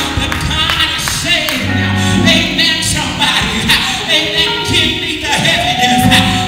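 A woman singing a gospel worship song into a handheld microphone, amplified, over instrumental accompaniment.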